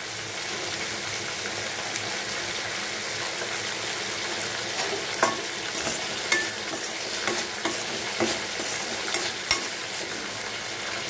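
Chopped onion and capsicum sizzling in hot oil in a metal kadai, with fresh curry leaves just dropped in, while a metal spatula stirs and scrapes the pan. There are several sharp clinks of the spatula against the pan in the second half.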